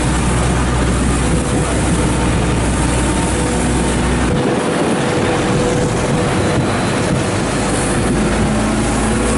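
Water tanker truck's engine and pump running with a steady hum, while a hose jet hisses onto the asphalt as the street is washed.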